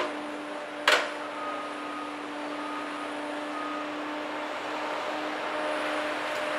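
Cat 521 track feller buncher's engine and hydraulics running steadily with a constant hum, broken by a sharp crack about a second in.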